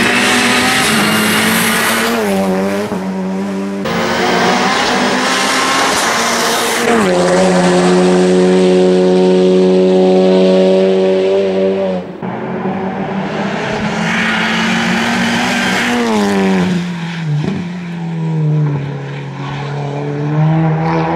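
Audi RS3 TCR race car's turbocharged four-cylinder engine under hard acceleration, the engine note rising and falling as it shifts gears and lifts off for corners, with several sharp downward sweeps in pitch and one long stretch held high in the middle.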